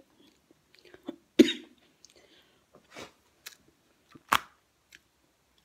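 Eating by hand: a handful of short, separate mouth smacks and clicks, the loudest about a second and a half in and another sharp click near the end.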